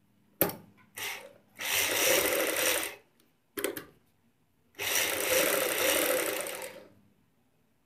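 Black straight-stitch sewing machine sewing through fabric and buckram, running in stop-start bursts: two brief starts, a run of just over a second, another brief start, then a run of about two seconds.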